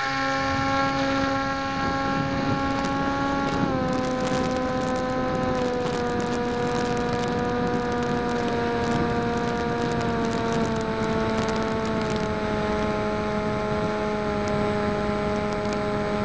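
Electric motor and propeller of a PopWing foam flying wing in flight, heard through the camera on board: a steady whine that steps down in pitch twice a few seconds in, then sinks slowly lower. Wind rushes over the airframe throughout, and scattered crackling clicks come through the middle.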